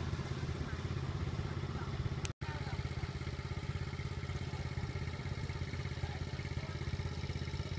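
A small engine running steadily, a low drone with a fast even pulse. The sound cuts out for an instant about two and a half seconds in.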